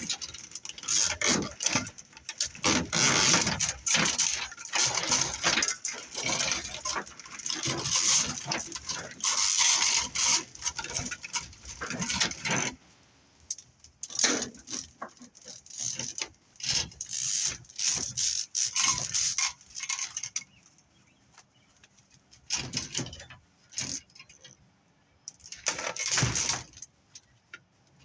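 Metal scrap from BX armored cable being handled, clinking and rattling, with a dense clatter for about the first half and sparser knocks after.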